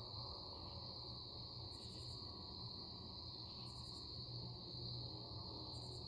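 Evening chorus of crickets: a steady high-pitched trill that never breaks, with a short buzzy call from another insect about every two seconds, over a low background rumble.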